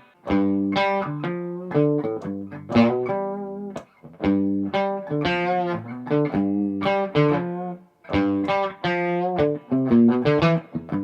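Gibson Custom SG electric guitar played in a sound sample before its setup: picked notes and chords in short phrases, with brief pauses about four and eight seconds in.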